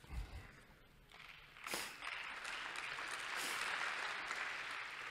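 Audience applauding, the clapping building from about a second in and tailing off near the end.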